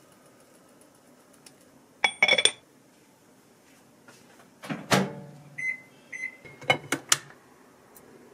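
A pot lid clatters down onto a small pot, then a frying pan is set down on an induction cooktop with a loud ringing knock. The cooktop's controls beep twice, followed by two sharp knocks.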